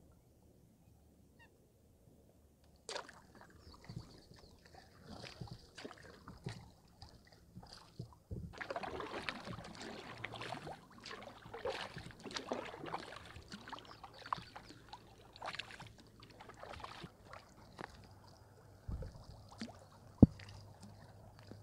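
Canoe paddling on a river: irregular paddle strokes in the water, with birds calling. A sharp knock comes about three seconds in, and a single louder knock near the end.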